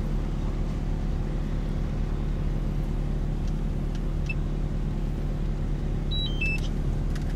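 Kobelco SK260LC crawler excavator's diesel engine running at a steady speed while its bucket digs into a dirt pile.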